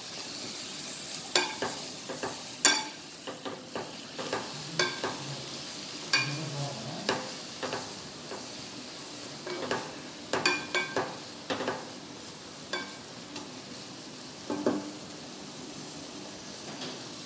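Chopped chicken sizzling as it is sautéed in a pot, stirred with a wooden spatula that knocks and scrapes irregularly against the pot's sides. The stirring stops near the end while the sizzle goes on.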